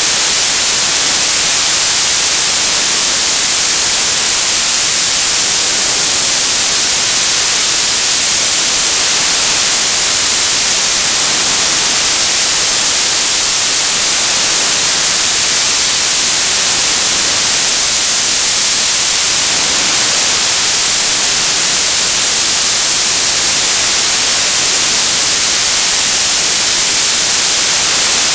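TV static: a loud, steady hiss of white noise, brightest in the high end, with no change throughout.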